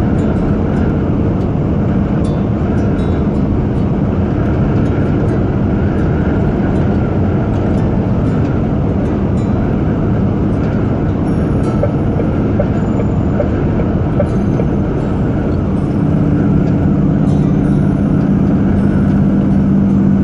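Truck engine and tyre noise heard from inside the cab while driving at motorway speed, a loud, steady rumble. About three-quarters of the way through, a deeper engine hum comes up and grows louder.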